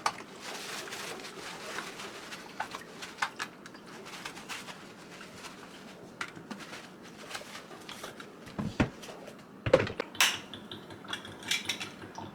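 Humidifier parts being handled and set down: scattered light clicks and knocks, with a couple of louder knocks about nine to ten seconds in.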